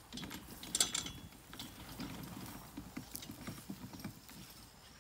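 Gorilla dump cart rattling and clicking as it is pulled over grass: the metal frame and handle knock irregularly against the poly bed, loudest about a second in.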